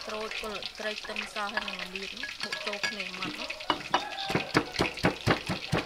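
Wooden pestle pounding lemongrass, shallots and garlic in a stone mortar: a quick run of hard knocks, about four a second, starting a little past halfway.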